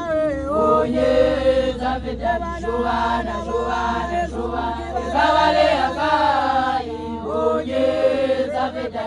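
A group of Basotho women initiates singing a chant together, many voices in loud phrases with short breaks between them.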